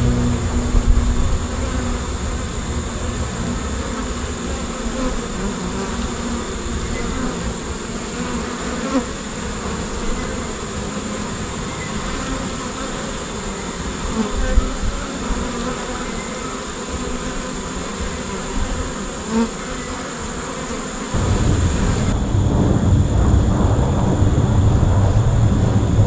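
Honey bee swarm buzzing steadily as bees fly around the cluster hanging on a wooden box. A low rumble comes in near the end and stays.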